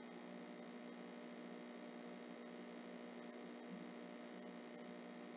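Steady low electrical hum with a faint hiss, the recording's background noise.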